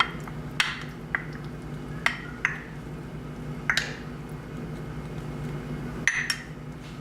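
A measuring cup knocking and clinking against plastic meal-prep containers as chopped boiled egg is portioned out: about six short, sharp taps spread irregularly, with two close together near the end, over a steady low hum.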